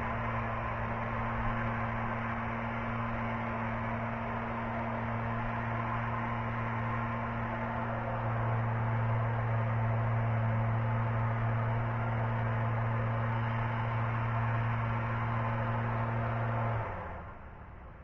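Steady mechanical hum of a machine running, a little louder from about halfway, that cuts off suddenly near the end.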